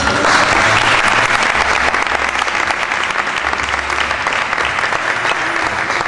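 Audience applauding, loudest in the first second or two and easing off slightly after.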